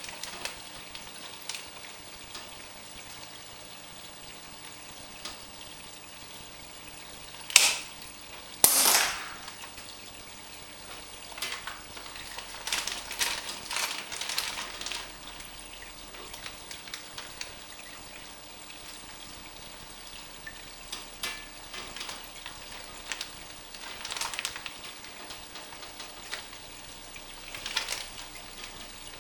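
Aquarium water trickling and splashing, with clusters of crackly splashes. Two sharp snaps stand out, about seven and a half and nine seconds in.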